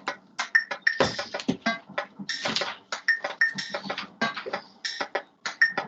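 A sound-collage passage of rapid, irregular clicks and ticks, some with a brief high chirp.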